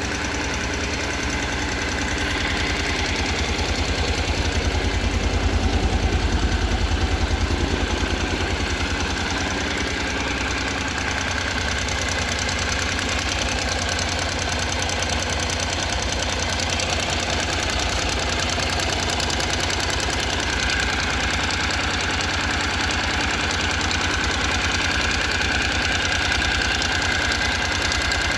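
Honda NC750X parallel-twin engine idling steadily with a rhythmic valve ticking. This is the valve noise that appeared after the valve clearances were loosened to spec, and the owner cannot yet say what causes it. The engine runs slightly louder for a few seconds about four seconds in.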